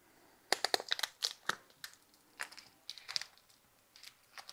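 Crinkling and crackling of plastic packaging being worked open, most likely the wrapper of a block of cheese. A quick run of sharp crackles comes about half a second in, followed by a few scattered ones.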